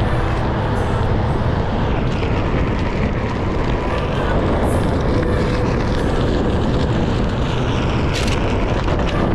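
Steady road and wind noise of a Onewheel GT-S rolling over asphalt at riding speed, with wind buffeting the microphone.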